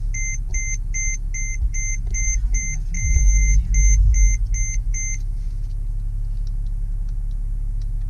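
2007 Mercedes ML320 CDI's V6 turbo diesel idling just after starting, a steady low rumble, while a dashboard warning chime beeps about three times a second and stops about five seconds in.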